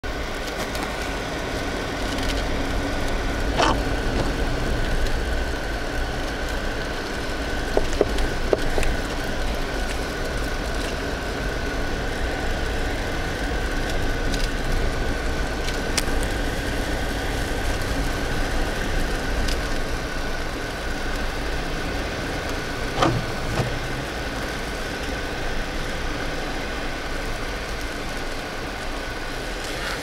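Inside a moving car on a snowy, slushy road: the steady low rumble of engine and tyres, with a few short sharp clicks scattered through it.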